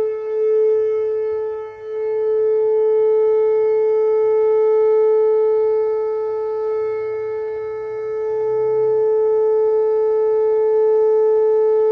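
Whelen WPS-2809 electronic outdoor warning siren sounding a steady, unwavering tone during a test, its level swelling and dipping, with a brief dip about two seconds in and a slower one near the end.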